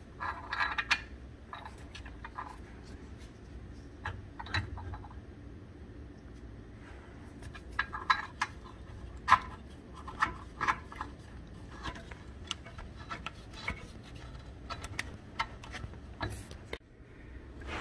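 Irregular light metallic clicks and clinks of steel bolts being started by hand into the transaxle's aluminium motor mount, over a faint steady low hum.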